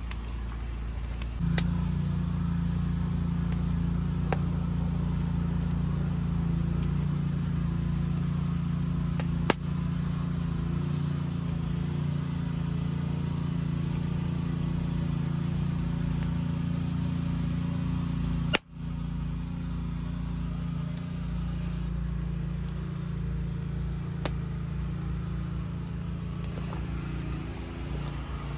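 A steady low mechanical hum, like an idling engine, runs under a twig fire burning around a tin, with a few sharp crackling pops from the burning wood.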